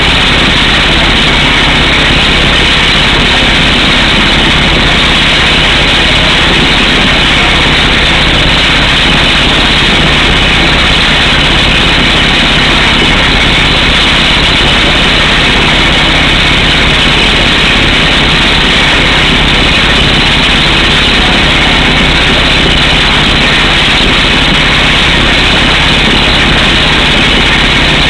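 Truck-mounted drill rig driving an air hammer through solid rock for a power pole hole: a loud, steady, unbroken clatter, with the rig's engine running underneath and compressed air blasting rock dust out of the hole.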